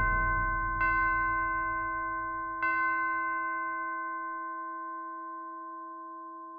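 A pitched orchestral bell rings and is struck twice more, about two seconds apart. Each stroke sets the same chord of tones ringing, and they fade slowly.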